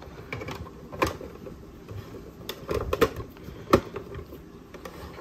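Hinged hard-plastic top panels of a toy playset base being folded down and pressed shut by hand, giving a few separate clicks and knocks; the sharpest knock comes a little after the halfway point.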